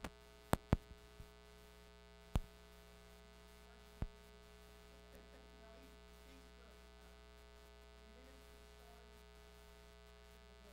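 Steady electrical mains hum, with a handful of sharp knocks and taps in the first four seconds as a large wooden-framed stretched canvas is set in place on its easel.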